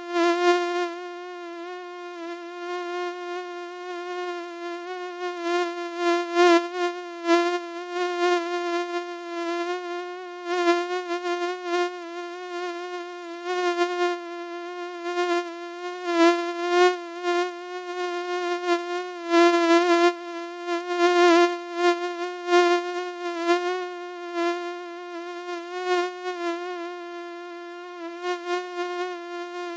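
Mosquito buzzing in a continuous high whine that holds one steady pitch while its loudness swells and fades irregularly, over and over.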